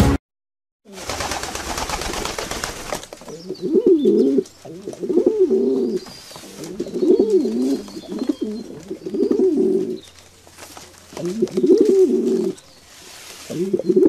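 A flock of pigeons cooing: about six bouts of low coos, each about a second long, rising and falling in pitch with short gaps between. A rushing noise fills the couple of seconds before the cooing starts.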